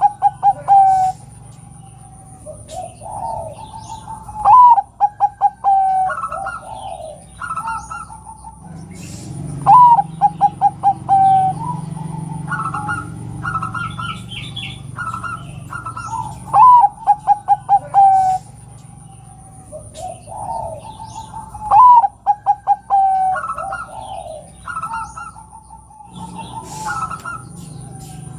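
Zebra dove (perkutut) song. Each phrase is a rising coo followed by a quick run of short staccato notes, and it comes four times, about every five to seven seconds. Softer low coos and short calls fill the gaps between phrases.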